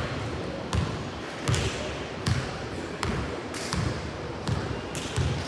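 Basketball being dribbled on a hardwood gym floor: a steady run of bounces, about one every three-quarters of a second, each a low thud with a sharp slap, echoing in the large hall.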